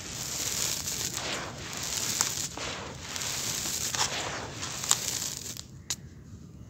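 Dry, gritty grey dirt with small pebbles crunching and hissing as hands squeeze and crumble it and let it fall into a bowl, with a few sharp clicks of pebbles. The crunching stops about a second before the end.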